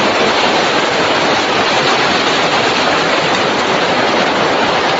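A loud, steady rush of storm-force wind and heavy driving rain, with no letup.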